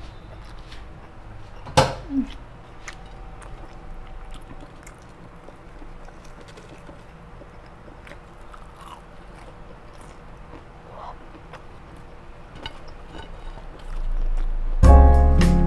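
Crispy fried chicken batter crackling in scattered small crunches as pieces are handled and torn open by hand, with one sharp knock about two seconds in. Music with piano starts just before the end.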